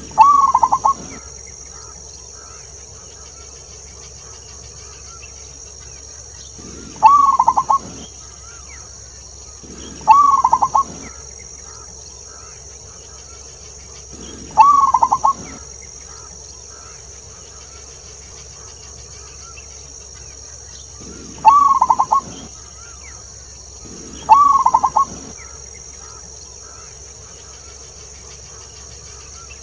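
Zebra dove (perkutut) singing: six cooing phrases, each about a second long and a few seconds apart, each opening on a long 'klauww' note. A steady high hiss runs underneath.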